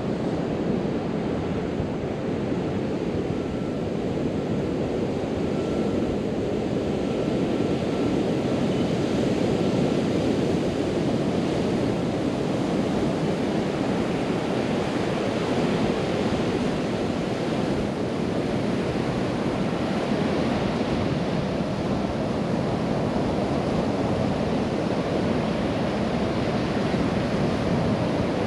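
Ocean surf breaking and washing on a beach, a steady rush, with wind buffeting the microphone.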